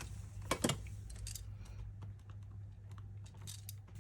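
Light clicks and rustles of Australian polymer banknotes and paper savings-challenge sheets being handled and sorted, loudest as a pair of sharp clicks about half a second in, over a steady low hum.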